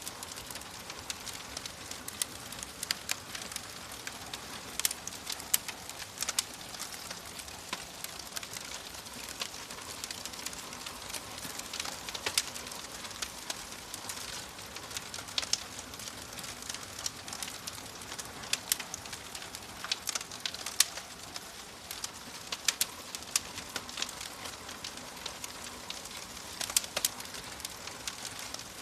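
Fire crackling: a steady hiss with irregular sharp pops and snaps scattered throughout.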